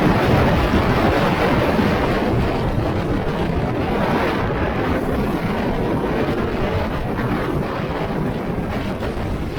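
Very strong mountain wind buffeting the microphone: a loud, continuous rush with no pitch, easing a little toward the end.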